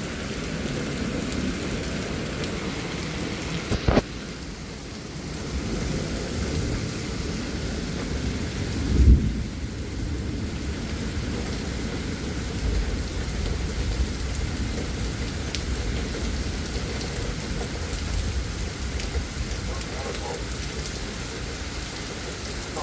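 Heavy rain and wind from a derecho thunderstorm, a steady dense rush. There is a sharp knock about four seconds in and a loud low rumble about nine seconds in.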